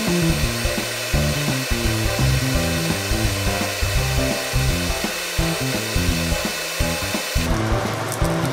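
Background music with a low melodic line over the steady hiss of gyoza frying in oil. About a second before the end, the hiss gives way to scattered sharp crackles of the frying oil.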